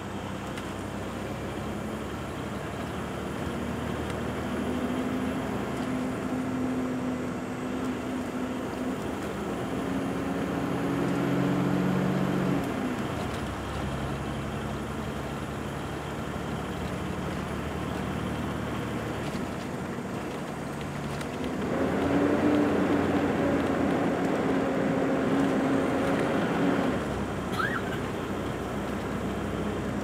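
Steady road noise from inside a moving vehicle, with tyres and engine humming at speed. It swells louder for several seconds about two-thirds of the way through.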